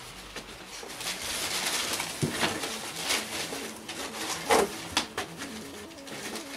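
Rustling and scraping of packaging as a hand rummages through a large cardboard box, with scattered knocks of items against the cardboard; the sharpest knock comes about four and a half seconds in.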